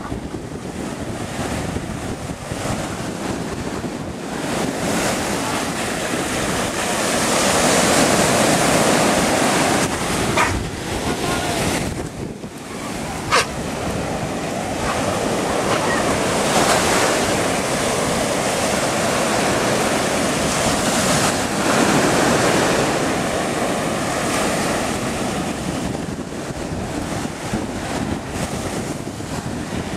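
Ocean surf breaking on the shore: a continuous rushing wash that swells louder with each breaking wave, with wind buffeting the microphone. Two short knocks come about ten and thirteen seconds in.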